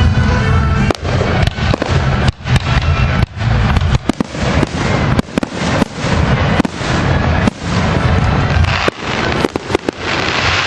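Fireworks display: aerial shells bursting in rapid, overlapping succession. Many sharp bangs come several a second over a continuous low rumble.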